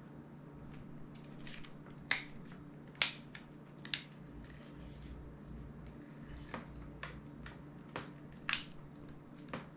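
Short plastic clicks and taps from handling the parts of an opened smartphone: about a dozen small clicks, with a few sharper snaps a few seconds in and again near the end, over a low steady hum.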